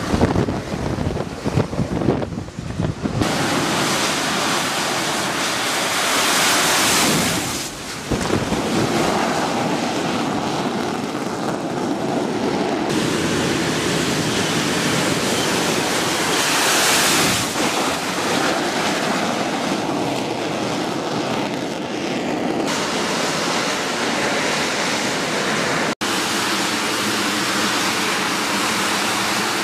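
AV-8B Harrier's Rolls-Royce Pegasus turbofan at high thrust during takeoff and hover: a loud, continuous rushing jet noise. The noise changes abruptly several times at edit cuts, and a few steady tones come through near the end.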